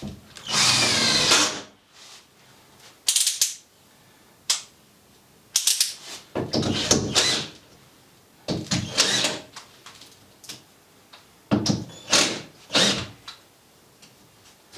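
A handheld power drill runs in short bursts, about eight times, its motor whine rising and falling with each trigger pull. The longest burst comes at the start.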